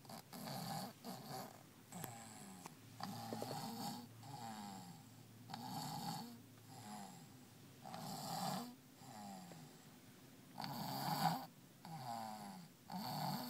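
Seven-month-old baby snoring in his sleep, a noisy snore on each breath in and out about once a second, with a short pause past the middle. The parent puts the heavy snoring partly down to a cold.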